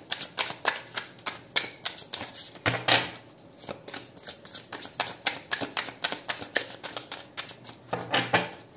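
A deck of tarot cards shuffled by hand: a fast, uneven patter of small card clicks and rustles, with a louder burst about three seconds in and another near the end.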